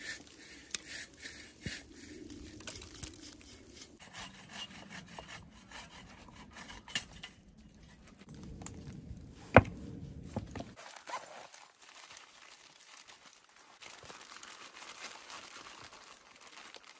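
Wood being worked by hand, with rubbing and sawing-like scraping, scattered clicks, and one sharp knock about ten seconds in.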